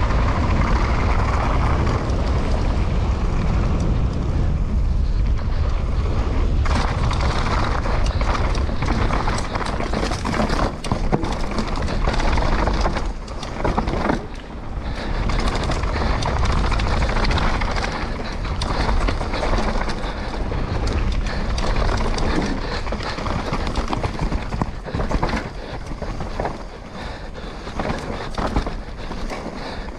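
Downhill mountain bike descending at speed on gravel and dirt trail: steady wind rush on the camera microphone and tyre noise, with frequent knocks and rattles as the bike goes over bumps.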